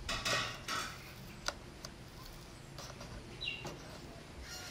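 Rustling and sharp clicks of a plastic gauge protector cover being handled and pressed onto a scooter's instrument panel: a few scuffing rustles at the start, then a crisp click and lighter taps. A short high chirp sounds about three and a half seconds in.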